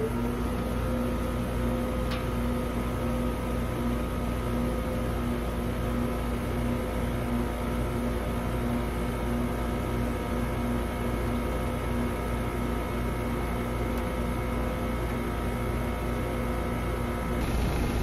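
2010 Trane XL15i heat pump outdoor unit with an Alliance scroll compressor, running in heat mode just after startup. A rising tone at the very start settles into a steady hum with a low drone.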